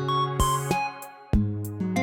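Background music: plucked acoustic guitar picking out notes at an easy pace.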